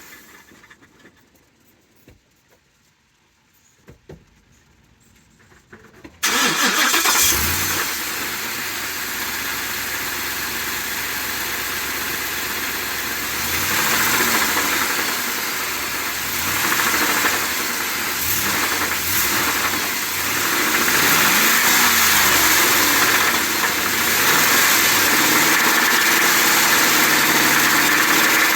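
Ford 7.3-litre Godzilla gas V8 starting about six seconds in, after a few near-quiet seconds with small clicks, then running with a loud, noisy idle that rises and falls. This is the bad engine noise still present after the dealer's oil pump repair.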